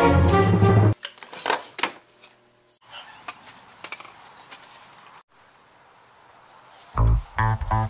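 Background music that stops about a second in. Then a steady high-pitched insect trill with faint outdoor hiss, until music comes back in near the end.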